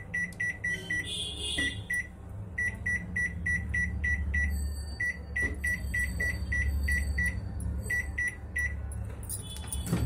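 Microwave oven keypad beeping in quick succession, about four or five short identical beeps a second with a few brief pauses, one beep per button press as the cooking time is counted up. A low hum runs underneath.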